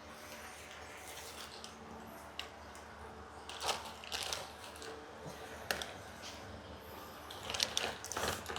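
Scattered light clicks and rustling of small items being handled in a toolbox drawer, over a faint steady hum.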